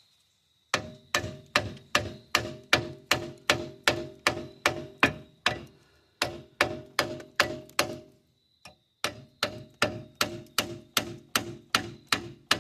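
Quick, even hammer blows on metal, about three a second, each with a short ring. They come in three runs with brief pauses, knocking a rusted brake caliper loose.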